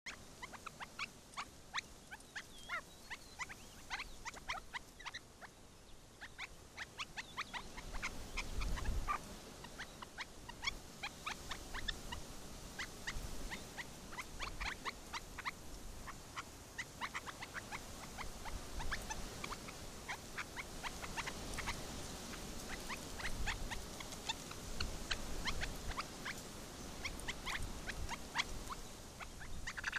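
A flock of young red-legged partridges peeping: many short, thin, high calls, several a second, throughout. A brief low rumble comes about eight seconds in.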